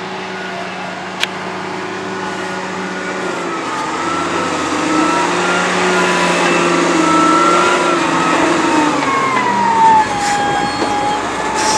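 XCMG ZL50GN wheel loader's diesel engine running under load, its pitch wavering up and down and a whine sliding lower near the end. One sharp click sounds about a second in.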